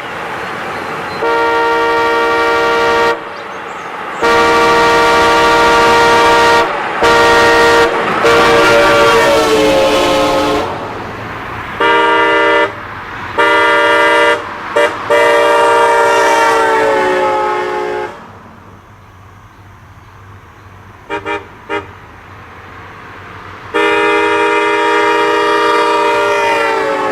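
Cadillac Eldorado four-horn set, tuned to the notes A, C, D and F, sounding together as one chord in a series of long and short blasts. A couple of the long blasts sag in pitch as they die away, and there are two quick taps near the middle.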